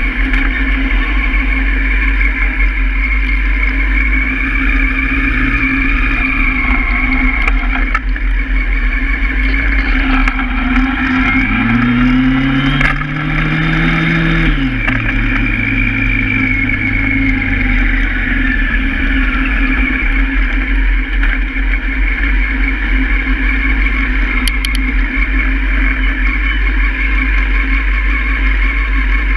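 Honda Hornet motorcycle engine running while riding, with steady wind rumble on the camera microphone. About halfway through the engine revs climb for a few seconds under acceleration, then fall back sharply and settle lower.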